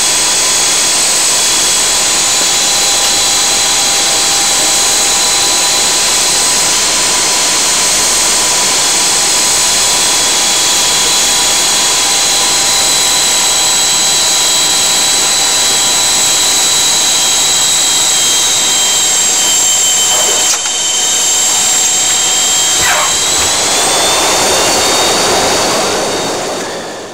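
Aircraft engines heard from inside the cockpit: a loud, steady drone with a constant high-pitched whine. The whine rises slightly in pitch near the end, and the sound then fades out.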